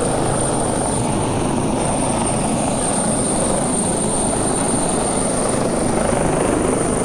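Helicopter hovering overhead: a steady, dense rotor and engine noise, with a thin high whine running through it.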